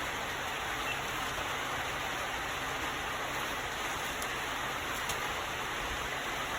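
Steady, even background hiss with no change in level, and a couple of faint ticks a few seconds in.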